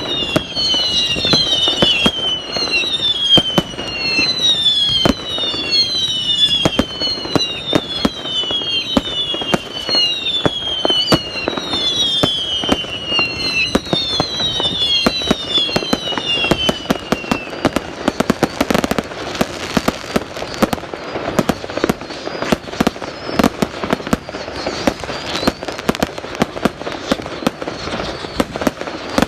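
Fireworks display: a quick run of overlapping whistling fireworks, each whistle falling in pitch, over many sharp bangs. About seventeen seconds in the whistles stop, and dense crackling and bangs carry on.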